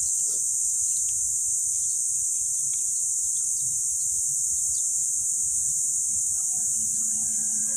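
Steady, unbroken high-pitched drone of an insect chorus in the trees, with a faint low rumble underneath.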